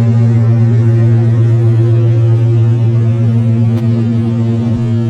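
Steady low drone of an aircraft's engines heard inside the cabin, a loud even hum of a few fixed tones.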